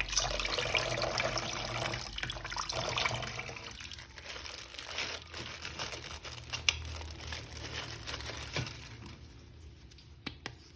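Water running from a tap and splashing over a plastic action figure being rinsed clean. The flow is strongest in the first few seconds, then tapers off, leaving a few small clicks and knocks of the figure being handled.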